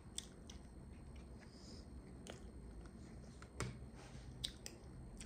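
Faint, close-miked chewing of cooked meat, with a handful of short wet mouth clicks, the loudest a little past halfway.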